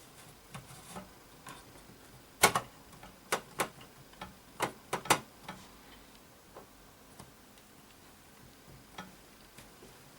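A series of sharp clicks and knocks of small hard objects, loudest in a quick cluster of about seven between roughly two and five seconds in, with a few fainter ticks before and after.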